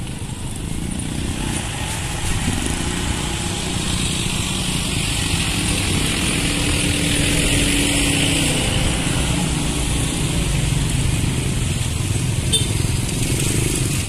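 Motorcycle engines idling and street traffic running, a steady mix of engine noise that swells a little toward the middle.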